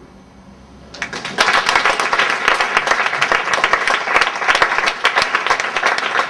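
Audience applause that breaks out about a second in and continues as loud, dense clapping.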